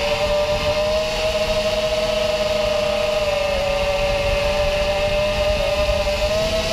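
Whine of an FPV racing quadcopter's four brushless motors (2207 2300KV, 5-inch tri-blade props), heard from the onboard camera in flight: a steady pitched hum that dips slightly midway and rises again near the end, over wind rumble.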